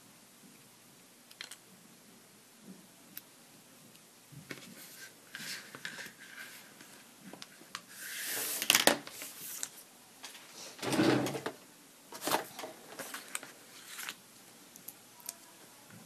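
Small craft scissors snipping card stock, with scattered soft snips and clicks, then paper scraps brushed and shuffled across a cutting mat, with two louder rustles around the middle and more light clicks and taps after.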